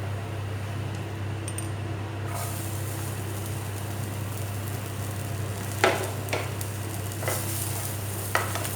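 Chopped onion and capsicum frying in butter in a pan, a sizzle that swells about two seconds in. A spatula stirring the vegetables knocks against the pan four times in the second half.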